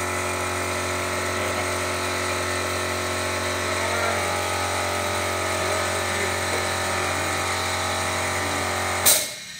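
Steady hum of a motor running at an even pitch, which cuts off suddenly with a sharp click near the end.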